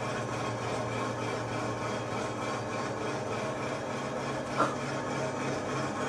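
Vertical CNC alloy-wheel repair lathe cutting the face of a spinning aluminium alloy wheel at an enlarged feed speed: a steady machine hum with cutting noise. A brief sharp sound stands out about four and a half seconds in.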